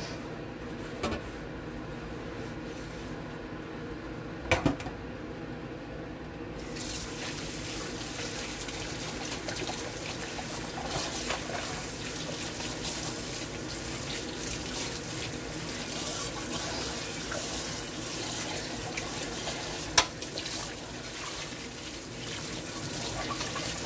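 A stainless steel pot scrubbed with a sponge in a kitchen sink, with a few sharp knocks. Several seconds in the tap is turned on, and water runs steadily from it, splashing over the pot being rinsed and into the sink below.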